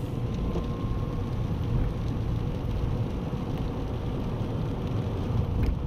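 Steady engine and road noise inside a moving car: a constant low rumble.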